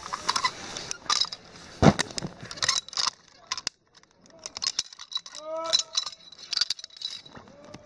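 Metal zipline hardware, carabiners and the pulley trolley, clinking and clicking against each other and the steel cable as they are handled. The clicks come in scattered clusters, with a short lull just past halfway.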